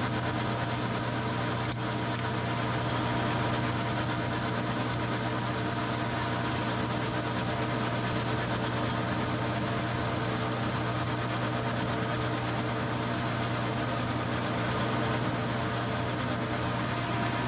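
Metal lathe running steadily under a cut, its tool turning down a steel TH400 transmission output shaft: a steady hum of the motor and gearing with a faint high whine above it.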